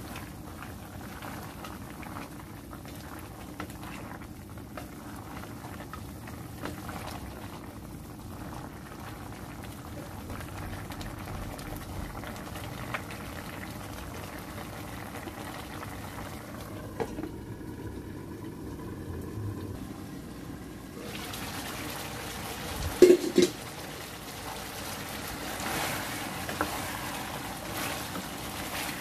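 Chicken gizzards and livers simmering in adobo sauce in a metal pan, a steady bubbling hiss with small pops. About two-thirds of the way through come two loud, sharp knocks, and a wooden spatula stirs the pan near the end.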